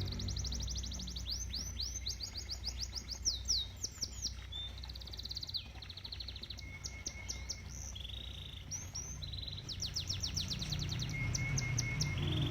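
Canary singing a long run of fast trills and rolls, each a quick string of repeated notes at a different pitch, some as rising sweeps. A low steady rumble runs underneath.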